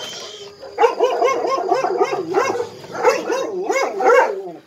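Dogs whining and yipping in many short, wavering, overlapping cries, starting about a second in after a brief scrape.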